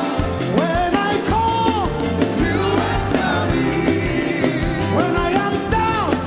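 Live gospel worship band with singing: a steady drum beat and bass under a melodic phrase that rises and holds, the same phrase coming round again near the end.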